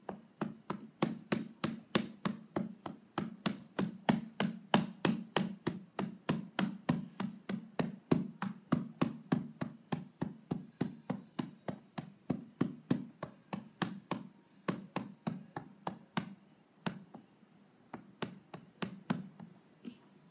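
Fingers tapping the rubber pads of a Novation Launchpad Mini in a quick, steady run of about three to four dull taps a second, thinning out near the end. Only the taps themselves are heard, because the music being played goes to headphones.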